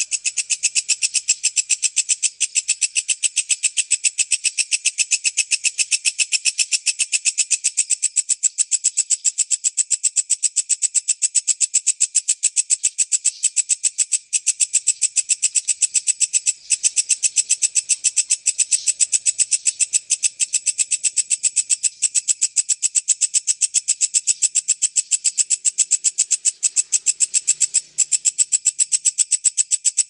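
Walang kecek insect stridulating in a fast, dense, unbroken train of evenly spaced high-pitched pulses, with a few very brief breaks.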